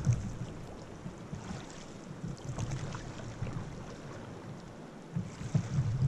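River water rushing and splashing around an inflatable raft running a whitewater rapid, a steady noisy wash with some low rumbling on the microphone near the start and end.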